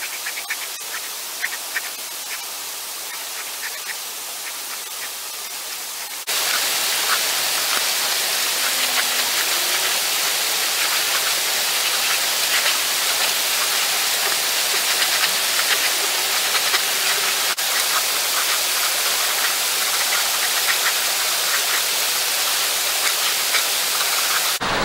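Steady rushing of a rocky creek, a haze of flowing water that gets clearly louder after a cut about six seconds in, with faint short crackles over it.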